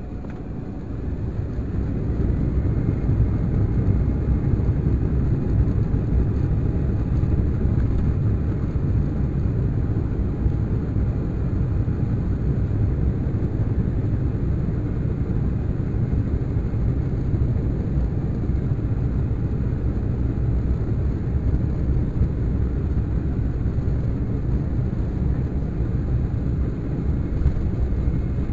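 Jet engines of an Embraer E195 airliner heard inside the cabin, spooling up to takeoff thrust and growing louder over the first couple of seconds. They then settle into a steady deep rumble through the takeoff roll.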